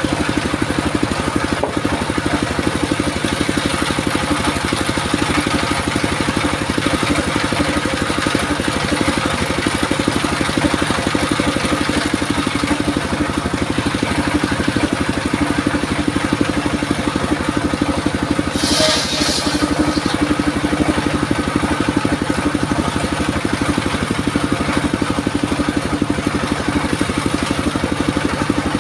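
28 hp diesel engine running steadily, driving the blade of a portable circular sawmill as a log is fed through it. A brief higher-pitched hiss comes about two-thirds of the way through.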